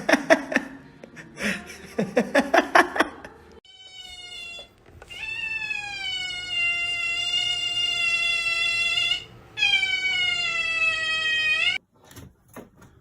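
A cat yowling: rough, broken cries at first, then two long, drawn-out wails, the second rising in pitch as it ends.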